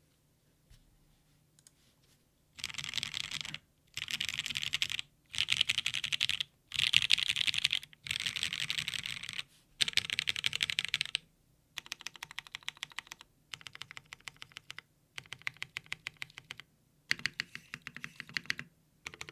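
Typing on a Geon Frog TKL mechanical keyboard with an aluminium plate, lubed Pewter switches and DCS Nightfall keycaps. After a couple of seconds of quiet, the keystrokes come in fast bursts of a second or so, with short pauses between them. In the second half the bursts thin out into more separate, distinct keystrokes.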